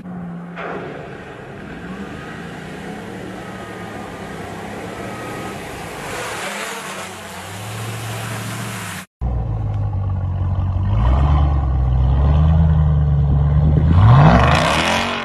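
Ram TRX pickup's supercharged V8 running, with a rush of tyre noise. After a sudden cut about nine seconds in comes a louder pickup V8 that revs hard near the end, its pitch climbing steeply along with a rush of wheel spin.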